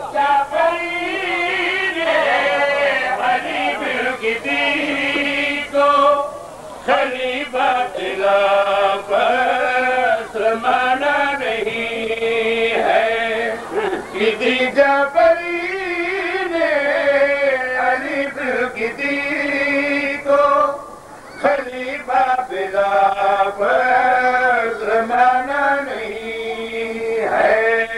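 A man's voice chanting verses to a slow, drawn-out melody, holding long notes that bend up and down, with two short breaks for breath.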